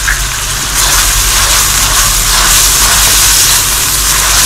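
Onion, garlic, ginger and green chilli paste sizzling in hot oil in a metal wok while being stirred with a wooden spatula. The sizzle grows louder about a second in.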